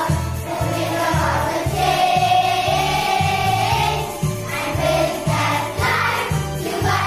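Children's choir singing a song in English over an instrumental backing track with a steady bass beat, about two beats a second.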